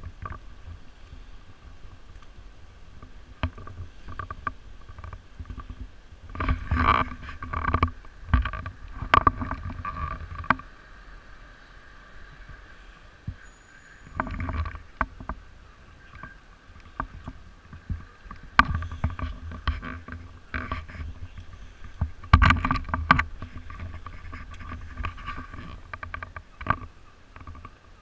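Irregular knocks and rubbing from a camera being handled and repositioned close to a wet street surface, in several clusters, over a steady faint hum.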